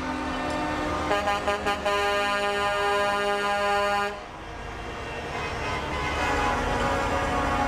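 Truck air horns and car horns honking: a few quick toots about a second in, then a long blast of several tones at once that cuts off suddenly about four seconds in. Steady traffic and engine rumble follows.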